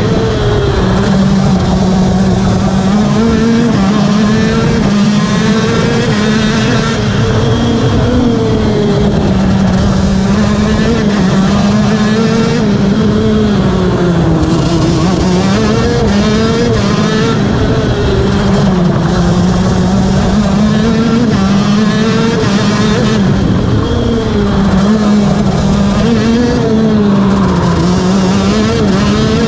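KZ2 shifter kart's 125 cc two-stroke engine at racing speed, heard from on board, its pitch rising and falling again and again as the driver accelerates, lifts and shifts through the corners.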